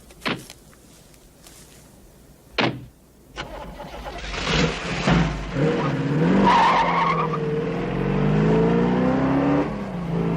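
A few sharp knocks, then a car engine accelerating hard, its pitch climbing again and again, with tyres squealing as it pulls away.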